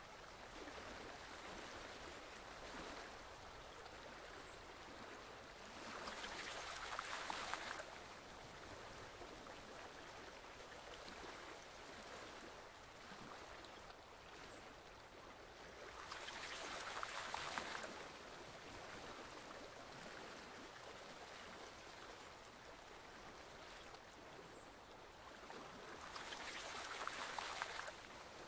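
Forest stream water flowing steadily, swelling louder three times, about every ten seconds.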